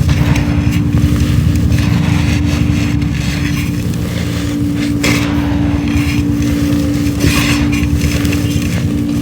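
Hand-crumbling of dry pure charcoal: irregular crunching and crackling, in bursts every second or so. Underneath runs a steady machine-like hum with a constant low tone, louder than the crumbling.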